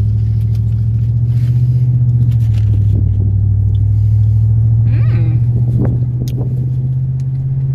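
Steady low drone of a moving car heard from inside the cabin: engine and road noise holding an even hum.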